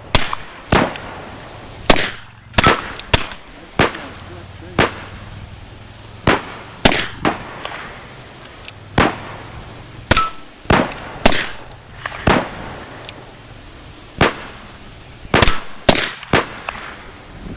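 Black powder percussion pistols firing: about two dozen gunshots at uneven intervals, some loud and close, others fainter.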